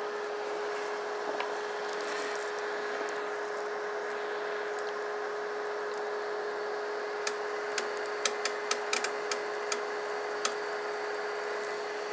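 AC induction motor running unloaded on a DIY-kit inverter, a steady hum with a whine. A faint high-pitched whine joins about halfway through, and a quick string of about eight sharp clicks comes in the second half.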